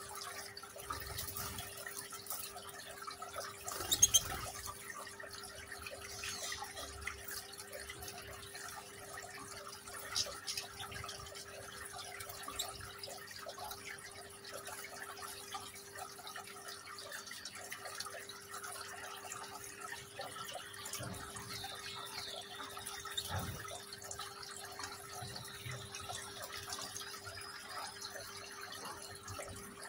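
Water trickling and dripping in a small decorative rock fountain, over a steady low hum. There is a sharp click about four seconds in, and a few faint high chirps from European goldfinches near the end.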